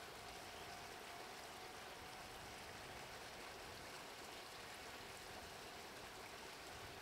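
Faint, steady background hiss with no distinct events.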